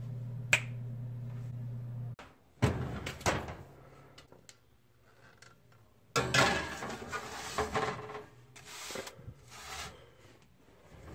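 A steady low hum with one sharp click, which stops abruptly about two seconds in. Then come knocks and the clatter of an oven door and a metal baking sheet as a foil-wrapped packet is set on the oven rack, busiest from about six seconds in.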